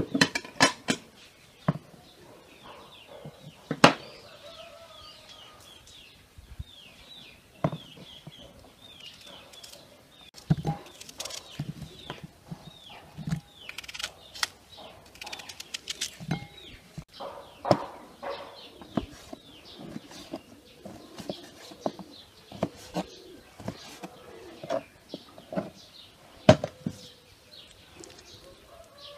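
Sharp clicks and knocks of a knife, plates and a glass bowl handled on a table while an onion is cut into chunks. Birds chirp repeatedly in the background.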